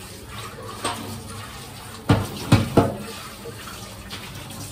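Steel utensils being washed by hand in a kitchen sink, knocking and clinking against each other and the sink, with a quick run of three sharp clanks about two seconds in.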